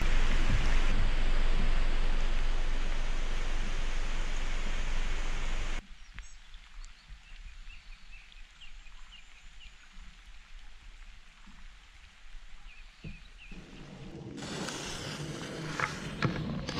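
Rain noise for about six seconds, loud and even with a low rumble, which cuts off suddenly. It gives way to a much quieter wet outdoor ambience with faint high chirps. Near the end a moderate steady rush of noise comes back in.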